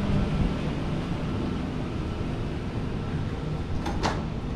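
Steady hum and hiss of a stationary double-deck electric train's onboard equipment beside the platform, with one short sharp hiss of air about four seconds in.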